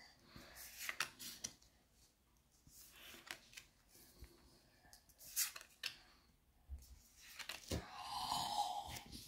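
Pokémon trading cards sliding and flicking against each other as they are moved one at a time through a small hand-held stack: quiet, irregular short swishes and clicks, with a longer rustle near the end.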